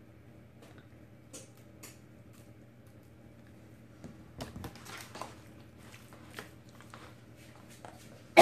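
Soft squishing and scraping of raw cubed chicken being stirred with a spatula in a disposable aluminium foil pan, with a few light clicks near the start and a busier stretch of stirring about halfway through.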